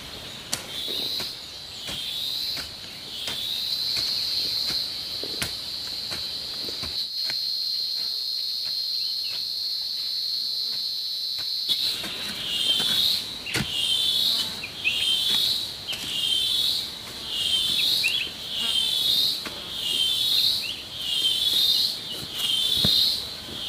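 A shrill insect call on one high note: a continuous buzz for several seconds, then a pulsing run of rising chirps about one a second through the second half. Light knocks of a hoe working soil sound under it in the first few seconds.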